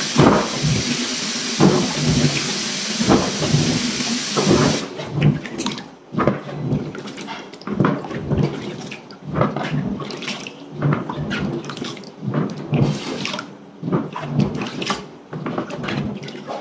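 Tap water running into a plastic basin of green plums while hands stir and rub the fruit, splashing. The tap shuts off about five seconds in, leaving the irregular sloshing and splashing of hands working the plums in the water.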